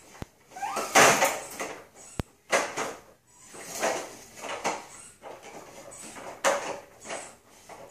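Plastic toddler push-walker toy rattling and clattering over a tile floor as it is pushed and turned, in a series of short bursts about a second apart, with a couple of sharp knocks early on.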